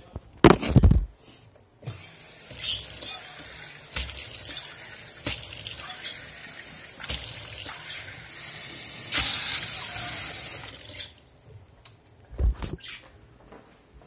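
A sink tap running into a small stainless-steel cup, rinsing and refilling it, for about nine seconds, the flow swelling and easing several times. There is a sharp knock just before the water starts and another about a second after it stops.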